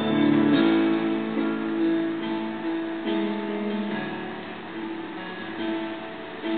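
Slow instrumental music with held notes that change every second or so.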